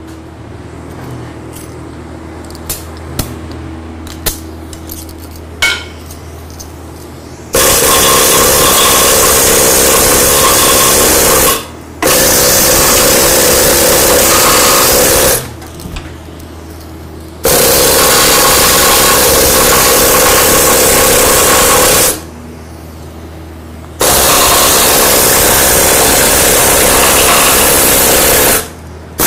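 Hand-held power tool working on a steel hatch, run in four bursts of several seconds each with short pauses between, after a few light clicks of handling.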